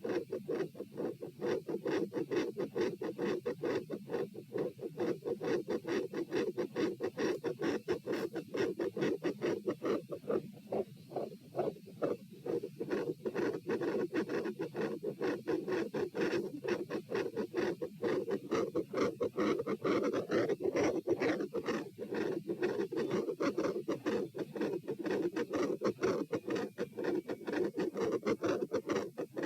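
Human heart beating fast and loud, heard through a stethoscope on the chest during exercise stress: a dense, even run of heart-sound thuds, several a second.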